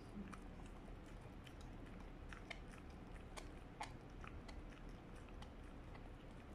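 A West Highland Terrier gnawing a toothbrush-shaped dental chew: faint, irregular crunching and clicking of teeth on the chew.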